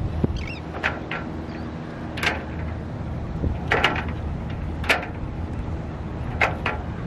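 Boat under way: a steady low rumble with short splashes of water against the hull, roughly one every second or so.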